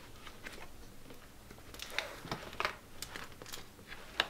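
Faint rustling with scattered light clicks and taps from things being handled, busier in the middle and with one sharper click near the end.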